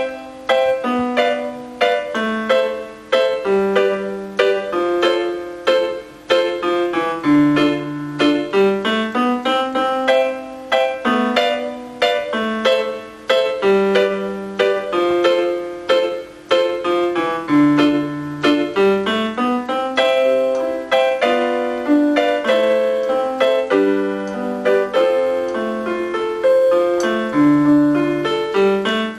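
Casio CTK-4400 portable keyboard playing a piano-like voice: a continuous run of struck notes, a melody over lower chord notes, each note ringing and fading.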